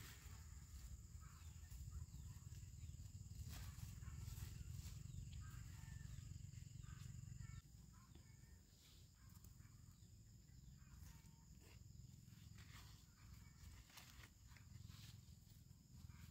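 Near silence: faint outdoor ambience with a low wind rumble on the microphone, light rustling of squash leaves and vines and soft footsteps as the plants are handled, and scattered faint chirps.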